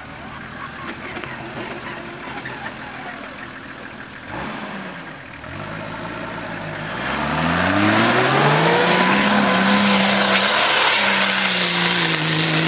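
Off-road 4x4's engine revving up hard from about five seconds in and then held at high revs under load as it climbs a sand dune, with a short dip in pitch partway through the climb.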